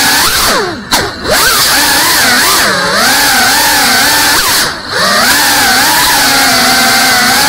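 Brushless motors and propellers of a GEPRC Cinelog 35 ducted cinewhoop FPV drone whining in flight, the pitch swinging up and down with the throttle. Twice the whine drops away briefly, about a second in and near five seconds, as the throttle is cut, then climbs back.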